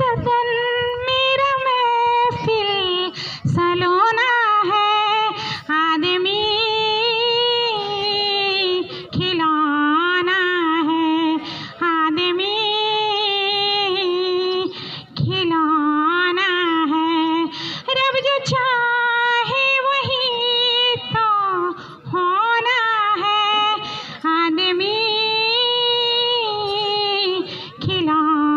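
A woman singing unaccompanied in long held, wavering notes, phrase after phrase with short breaks for breath.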